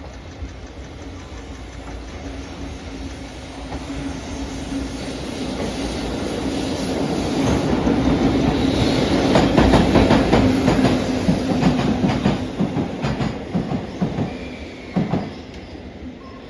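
Class EF65 electric locomotive hauling a rake of new railcars past at speed: a steady hum that grows as it nears, then a rapid run of wheels clacking over rail joints, loudest a few seconds past the middle and fading as the train goes by.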